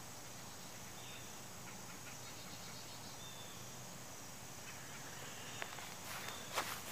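Outdoor ambience: a steady hiss with faint short high chirps every second or two. A few clicks and rustles come near the end, the loudest just before it stops.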